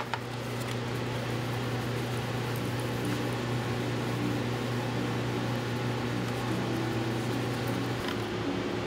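Steady low hum of a workshop ventilation fan running, with a short click at the very start and a slight change in the hum about eight seconds in.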